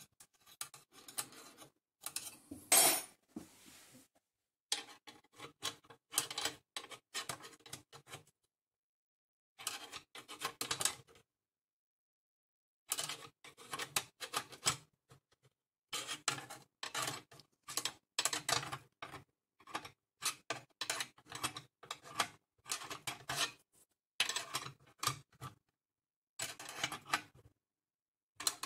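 Small flat wrench working the internal mounting nut of a lever switch against the metal chassis and front panel of a Hammarlund HQ-100 receiver. It makes runs of light metallic clicks and scrapes with short pauses, and the loudest clatter comes about three seconds in.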